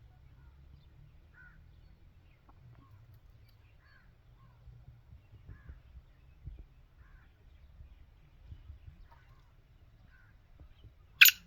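Faint, scattered bird chirps over a low background rumble, then near the end the first loud, harsh note of a black francolin's (kala teetar's) call.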